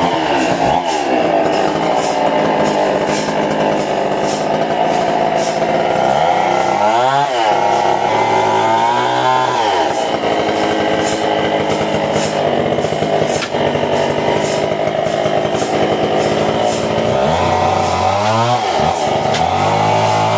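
Engine-driven saw running hard, its engine note dipping and climbing back up several times as the throttle or load changes.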